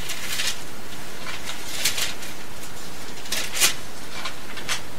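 A few brief, soft rustles of paper Bible pages being handled, over a steady hiss.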